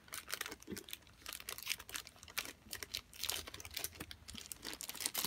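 Clear plastic wrap around a rolled diamond-painting canvas crinkling as it is handled and cut open with scissors: a run of small, irregular crackles and clicks.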